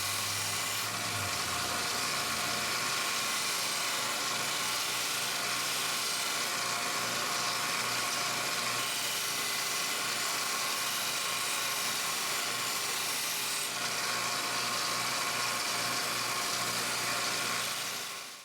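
Belt grinder running steadily while the edge of a 5160 steel cleaver is sharpened on the belt, a constant motor hum under an even grinding hiss; it cuts off suddenly at the very end.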